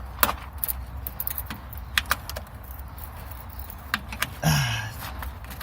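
Sharp metallic clicks and clinks of tools and loose metal parts as a bracket on a car's gear-shift linkage is worked loose, with a short strained grunt near the end.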